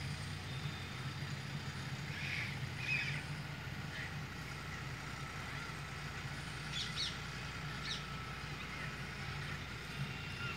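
Parrots giving a few short, shrill calls, twice in a pair about two to three seconds in and again in a cluster around seven to eight seconds, over a steady low hum.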